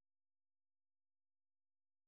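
Silence: the soundtrack is empty.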